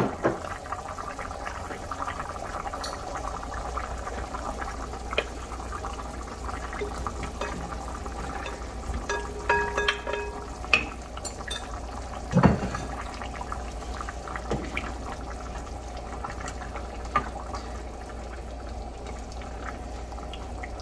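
Pot of pork rib stew simmering on a gas stove while chunks of zucchini are tipped in and stirred with a wooden spoon: a steady liquid bubbling with scattered knocks of spoon and vegetables against the pot, the loudest about twelve seconds in, and a brief ringing tone about ten seconds in.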